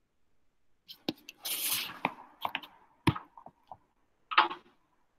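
Several sharp clicks and knocks, with a short hiss about a second and a half in and another brief noisy burst near the end, picked up over a video-call microphone.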